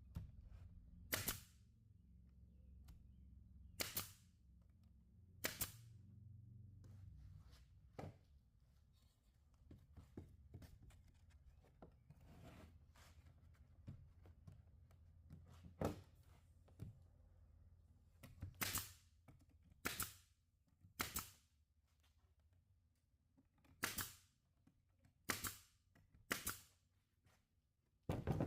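About a dozen sharp single snaps or knocks, one every one to three seconds at an uneven pace, with a low steady hum under the first half.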